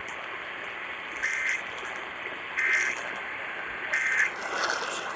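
Three short bursts of EAS SAME header data tones, the two-pitch warbling digital screech that opens an Emergency Alert System Required Monthly Test, about a second and a half apart over a steady hiss.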